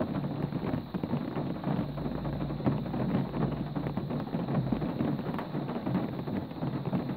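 Heavy rain falling in a dense, steady patter of countless drops, heard from inside a car.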